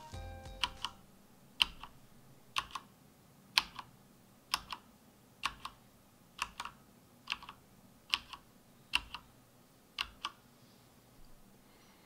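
Slow one-finger hunt-and-peck typing on an ASUS ROG GK2000 Horus RGB mechanical keyboard with dampened Cherry MX RGB Silent switches: about one keystroke a second, each heard as a pair of short clicks, with a few fainter taps near the end.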